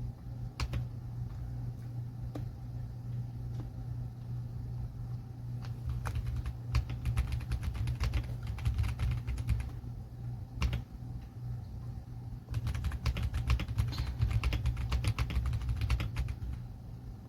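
Typing on the RK Royal Kludge M75 mechanical keyboard with red (linear) switches: a few scattered keystrokes at first, then fast runs of typing from about six seconds in and again from about twelve seconds in. A steady low hum sits underneath.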